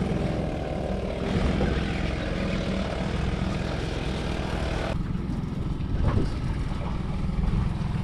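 Outboard motor idling with a steady low rumble; a higher hiss over it drops away suddenly about five seconds in.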